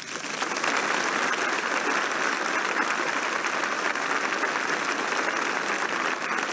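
A large crowd applauding, swelling in at the start and then holding steady.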